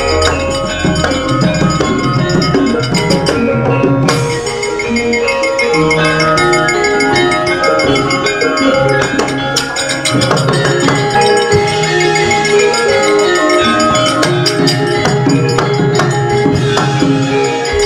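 Javanese gamelan playing an instrumental passage: many mallet-struck bronze metallophone notes ringing in layers, with drum strokes beneath.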